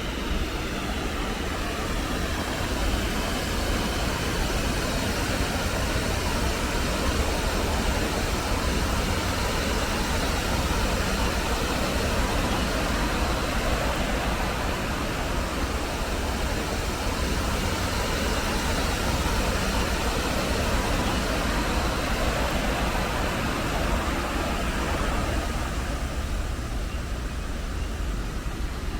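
Steady rushing of the Bronx River's West Farms Rapids as the water pours over a low dam, a loud, even roar with a heavy low rumble that eases slightly near the end.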